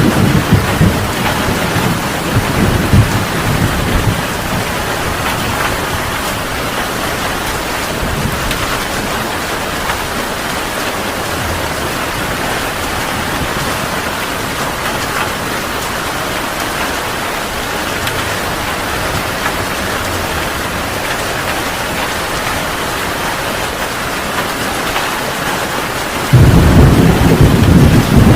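Heavy rain falling steadily in an even hiss, with thunder rumbling at the start and dying away after a few seconds. Near the end a loud rumble of thunder breaks in suddenly.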